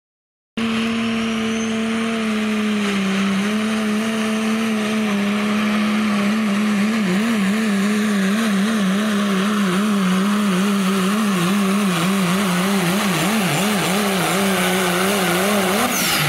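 Diesel pulling truck's engine running hard under load. It starts suddenly about half a second in as a steady high drone. From about the middle on its pitch wavers up and down, and right at the end the pitch falls away as the throttle comes off.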